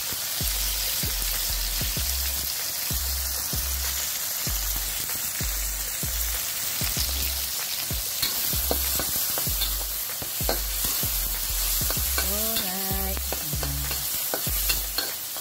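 Chopped tomatoes, onion and garlic sizzling in hot oil in a wok, stirred with a metal spatula that scrapes and clicks against the pan. A low beat of background music runs underneath.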